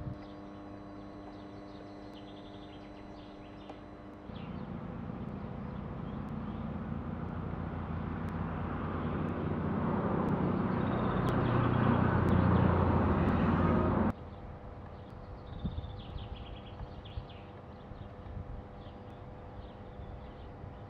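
A passing vehicle's noise growing steadily louder for about ten seconds, then cutting off suddenly. Faint bird chirps can be heard before and after it.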